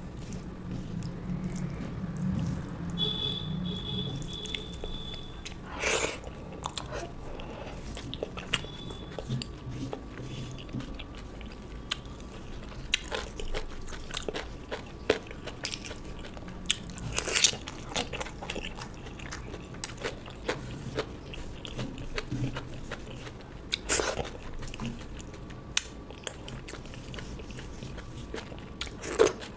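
A person eating close to the microphone: chewing and crunching food, with a handful of louder, sharp crunches or clicks spread through.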